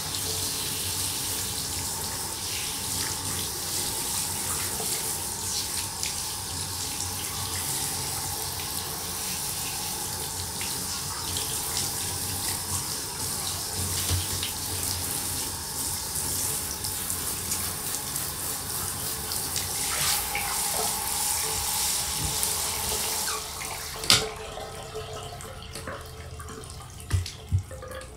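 Water from a handheld shower sprayer hissing steadily as it rinses a Doberman puppy's coat in a bathtub. Near the end the water cuts off with a sharp click, followed by a few short knocks.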